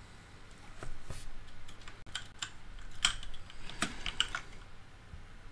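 Typing on a computer keyboard: irregular clusters of key clicks, starting about a second in.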